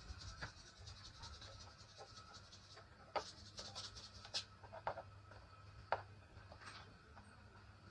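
Faint scratching and sharp little clicks of a metal rod working inside a harmonium, with a faint steady tone underneath.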